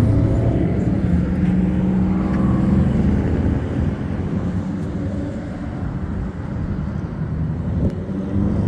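Road traffic: car engines running and passing, with a steady engine hum that eases off about halfway through.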